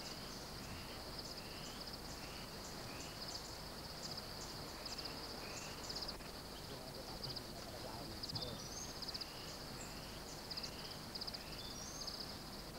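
A steady, high-pitched insect chorus with a pulsing trill, joined by a faint short chirp repeating about every half second through the first half and a few brief higher chirps later on.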